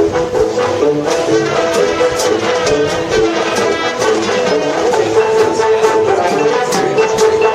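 High school marching band playing its field show: the brass holds and moves through chords over sharp drum strikes.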